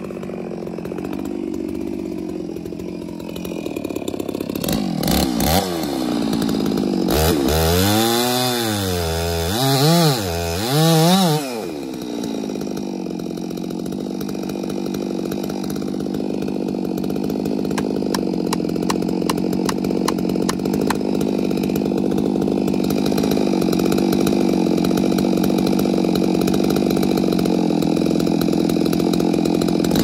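Chainsaw engine running, revved up and down several times between about five and twelve seconds in, each rev a rising-then-falling whine, then held at steady high revs for the rest, as when the saw is cutting into the trunk of a dead standing tree.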